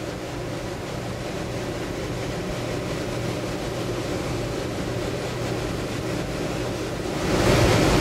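Beckett oil burner firing steadily: a continuous rushing roar of the flame and burner fan over a low hum, growing louder about seven seconds in.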